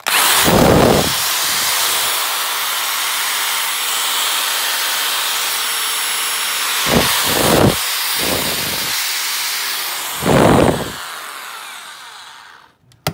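Bosch 550 W impact drill running with no load, its brushed motor giving a steady high whine. There are a few brief louder surges, and the motor winds down and stops near the end.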